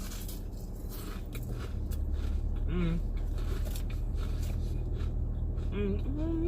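Close-up chewing and crunching of Popeyes fast food, with two short hummed voice sounds, over a steady low hum that gets louder about two seconds in.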